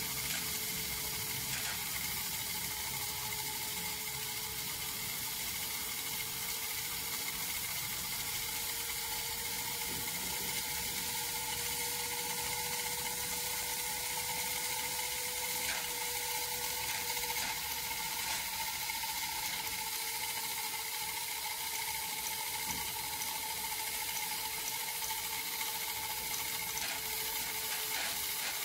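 American Toy Airship Company Whizzer toy steam turbine running: steam jets from the small tube on its tin can boiler and spins the turbine wheel. It makes a steady hiss with a whining tone that drifts slightly in pitch.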